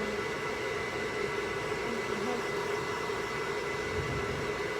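Hair dryer running steadily: a constant blowing noise with an even motor hum.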